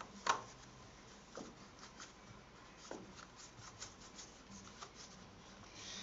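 Hand screwdriver driving screws into a sliding barn door lock body: faint scratchy rubbing and light ticks of the screw turning, with a sharper click about a third of a second in and a couple of smaller clicks later.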